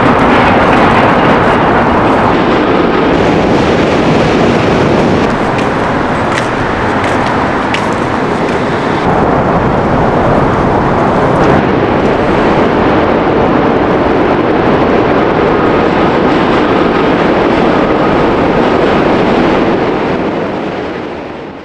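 Loud, steady rushing rumble of moving vehicle noise that fades out at the very end.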